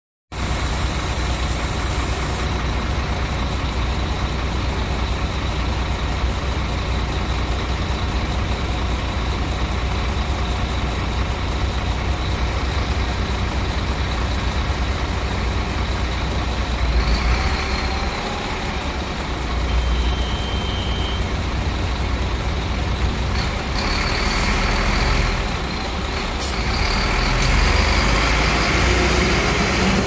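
Articulated city bus idling at a stop with a steady low engine rumble. In the second half there are bursts of air hiss as the doors close, and near the end the engine rises as the bus pulls away.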